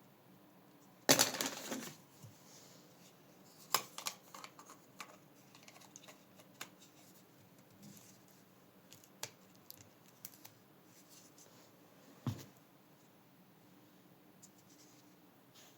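Small hard parts being handled: scattered clicks, taps and scraping, with a loud scraping clatter about a second in and a single sharp knock near the end.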